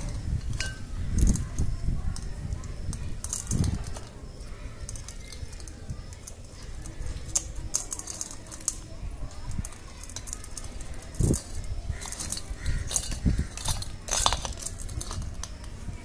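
Hands untwisting and pulling apart the lead wires of a rewound ceiling-fan stator: scattered light clicks and rustles, a few soft knocks, and light metallic jingling.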